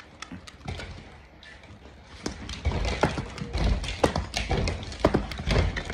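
Small dogs' claws clicking and tapping on a laminate floor, with knocks as they bump around the phone, sparse at first and busier and louder from about two seconds in.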